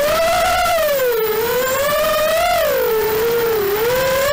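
Racing quadcopter's Emax 2204 2300 kV brushless motors spinning three-blade 5045 props, heard from the onboard camera: a buzzing whine whose pitch rises and falls several times as the throttle changes, dipping about a second in and again near the end.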